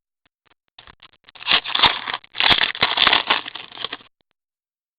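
Trading cards and their packaging being handled: rustling and scraping with sharp crackles, starting about a second in and stopping about a second before the end.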